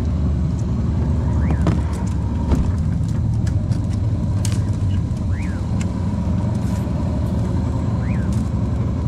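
A boat's outboard motor running steadily as a low, even drone. Over it, a short chirp that rises and falls repeats every few seconds, and there are a few light clicks.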